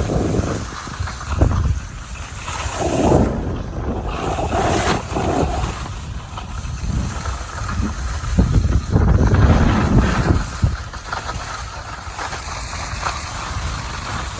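Skis scraping and carving over snow on a downhill run, with wind buffeting the microphone. A continuous low rumble swells and fades in waves, loudest about three seconds in and again around nine to ten seconds.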